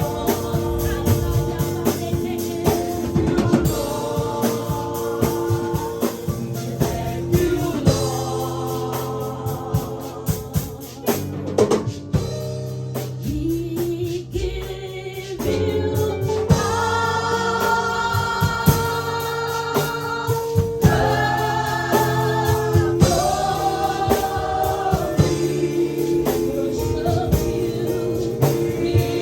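Gospel worship music: voices singing sustained held notes over keyboard chords and a drum kit, thinning out for a few seconds in the middle before the full sound returns.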